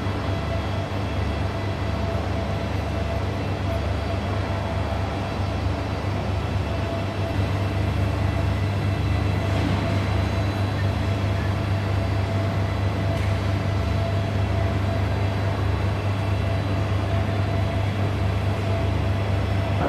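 Parked diesel passenger train idling at the platform: a steady low hum with a few thin steady tones above it.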